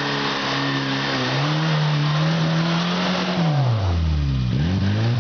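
Suzuki Samurai off-roader's engine revving under load in a deep muddy rut. It holds high revs for a couple of seconds, drops sharply to low revs about three and a half seconds in, then picks up again near the end.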